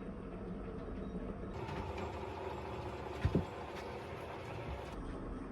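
A homemade firewood processing machine running steadily, its motor droning, with one sharp double knock a little past the middle as wood is struck.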